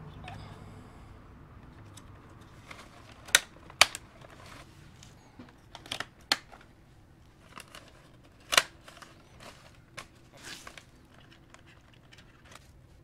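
Sharp plastic clicks and knocks as a black plastic Ram pickup grille is handled and turned over, with paper crinkling underneath. Two loud clicks come close together a few seconds in and another loud one past the middle.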